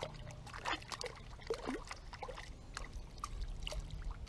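Creek water splashing and trickling, with many small drips and plops.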